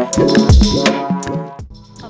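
Background music with a steady beat of drum hits, a shaker and pitched notes, fading out about a second and a half in.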